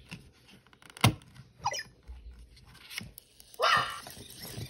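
Short squeaky electronic chirps from an EMO desktop robot as its headphones are lifted off: a brief falling chirp, then a louder rising one near the end. A single knock of hard plastic being handled about a second in.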